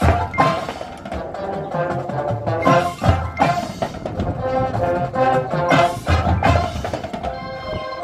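Marching band and front ensemble playing: brass chords over drum hits, with several loud accents, easing into softer held chords near the end.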